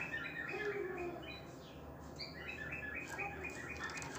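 Male domestic canary singing its breeding song: fast trills of quickly repeated short notes, in phrases broken by short pauses.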